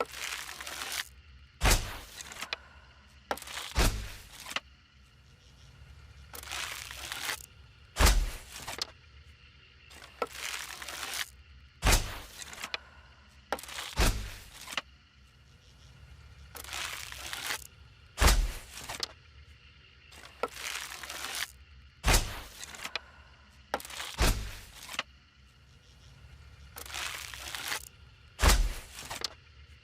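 A series of hunting-bow sounds: sharp snaps with a low thump, about nine of them, each every two to four seconds, with short rushing noises in between.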